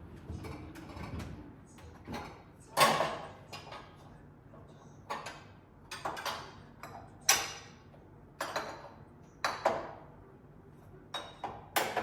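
Kitchen items handled and set down: about ten irregular knocks and clacks, each ringing briefly, the loudest about three seconds in and again about seven seconds in.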